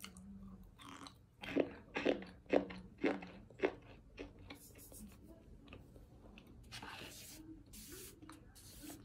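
Chunks of compressed cornstarch being bitten and chewed: about five loud, crisp crunches roughly half a second apart starting about a second and a half in, then softer chewing. Near the end come a couple of soft, hissing rustles as fingers dig into powdery cornstarch in a plastic tub.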